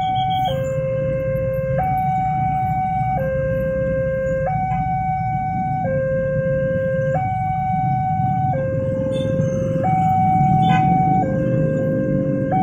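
Railway level-crossing warning alarm sounding from the loudspeaker on the signal post: a steady two-tone electronic hi-lo, switching between a higher and a lower note about every second and a third.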